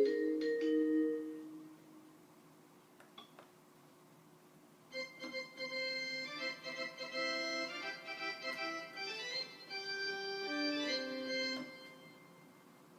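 KORG tinyPIANO toy keyboard playing a short melody of quick notes that copies a Seoul subway chime. The end of an earlier phrase fades in the first second or so, and the new melody starts after a pause of a few seconds.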